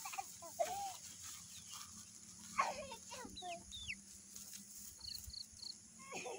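Faint clucks of chickens, with a few short high bird chirps, three in quick succession about five seconds in.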